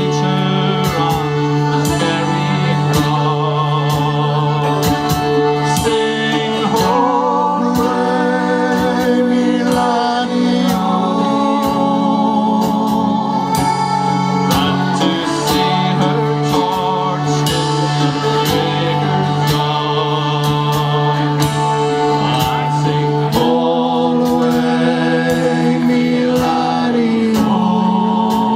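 A concertina and accordion band playing a folk tune in sustained reedy chords over a steady beat, with voices singing along.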